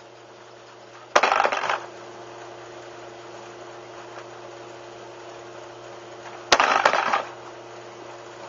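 An FPV Raptor RC plane dropped twice onto concrete, about five seconds apart, in a drop test of its landing gear. Each time the wheels and gear strike with a sharp clatter and a brief rattle.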